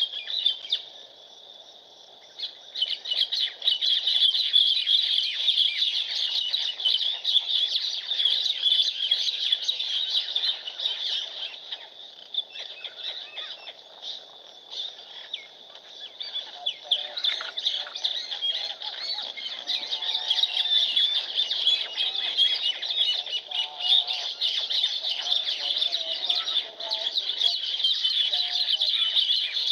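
A dense chorus of many small birds chirping and twittering without a break, apart from a short lull about a second in. Lower-pitched calls join in over the second half.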